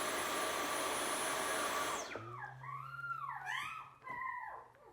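Loud, steady rushing noise of the vacuum-cleaner kind, played to young puppies as sound stimulation, cutting off about two seconds in. It is followed by wavering, gliding high tones over a low hum for about two seconds.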